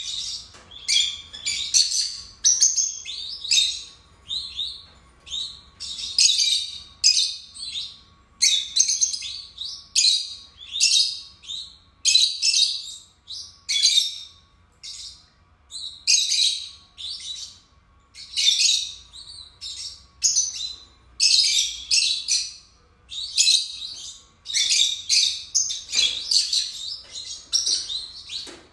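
A pair of peach-faced lovebirds calling without pause: a rapid series of shrill, high chirps in clusters, several calls every second.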